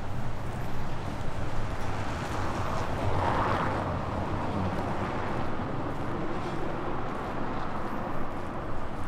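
Outdoor street noise with a vehicle passing, its sound swelling and fading about three to four seconds in, over a steady low rumble.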